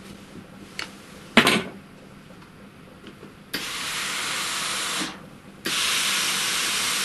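A steam-generator iron (Lelit PS 21) pressing fabric, giving two bursts of steam hiss of about a second and a half each, the second louder. A sharp clack comes first, about a second and a half in.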